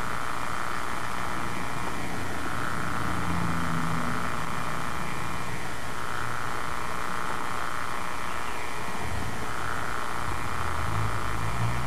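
Steady hiss and hum of an old camcorder recording with nothing in front of it, with a faint whirring tone that wavers slowly. A low drone swells about three seconds in and again near the end.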